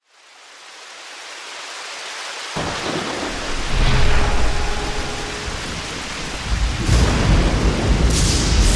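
Thunderstorm sound effect. A steady rain hiss fades in from silence, low rolling thunder starts about a third of the way in, and a louder thunderclap comes near the end.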